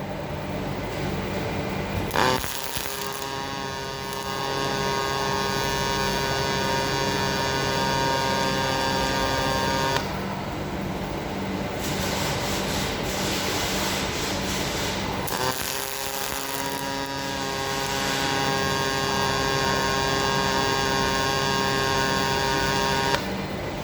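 MAG welding arc on stainless steel sheet, run by a robot torch: it strikes with a sharp click, burns with a steady buzzing hiss for about eight seconds and stops. After a pause of a few seconds the same happens a second time.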